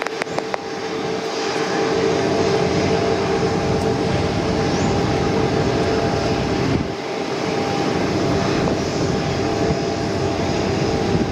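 Airbus A330-900's Rolls-Royce Trent 7000 turbofans running at taxi power as the airliner rolls past: a steady jet rumble with a steady droning hum on top. A few faint clicks about half a second in.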